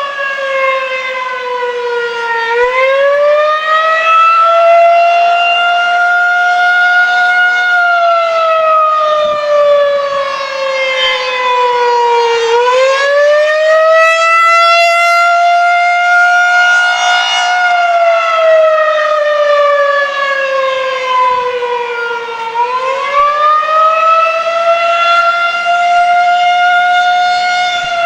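Federal Signal 2001-SRN electromechanical tornado siren sounding the Attack signal: a loud wail whose pitch rises, holds, then falls, repeating about every ten seconds.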